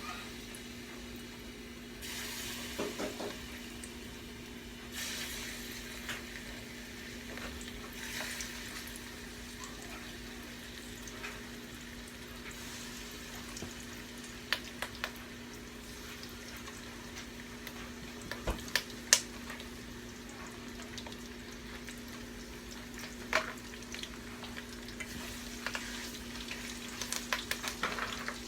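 Chicken pieces sizzling in hot grease in a pan, the sizzle swelling several times in the first half, with a few sharp clicks of a utensil against the pan in the second half.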